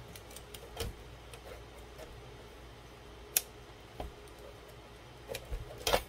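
Scattered light clicks and taps of a server motherboard being handled and lined up in its metal chassis, with one sharper click a little past halfway and a few more near the end, over a faint steady low hum.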